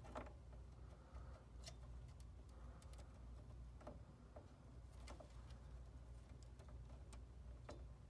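Faint, irregular clicks and taps of plastic PCIe power-cable connectors being handled and plugged into a graphics card, over a low steady hum.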